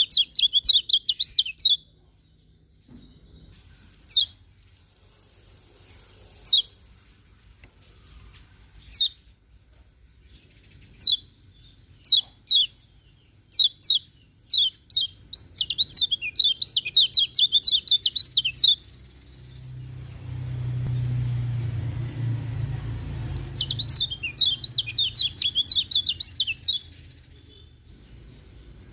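Kecial kuning white-eye singing: quick, high chirping in fast runs, with single chirps between and longer rapid runs about halfway through and again near the end. A low rumble swells underneath for a few seconds after the middle.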